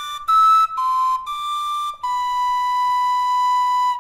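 Tin whistle playing a slow teaching phrase of a Galician muñeira: a few short notes stepping downward, then one long held note of about two seconds that stops at the end.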